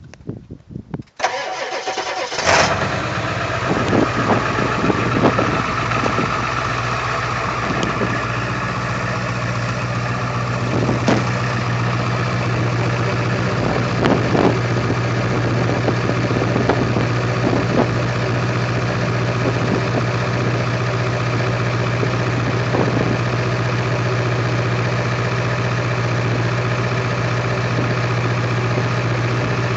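A 2001 Ford Excursion's engine cold-starting: it catches about a second in, then settles into a steady idle, heard at the exhaust tip. A few short clicks sound over the first fifteen seconds.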